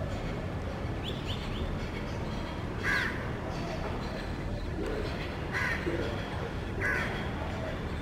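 Three short, harsh bird calls, about three, five and a half, and seven seconds in, with a few quick high chirps a second or so in. A steady low background rumble runs underneath.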